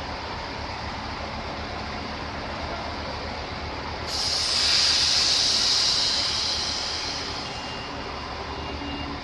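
Stationary EN57AL electric multiple unit humming steadily at the platform. About four seconds in, a sudden loud hiss of compressed air is released from the train, lasting about three seconds and fading away.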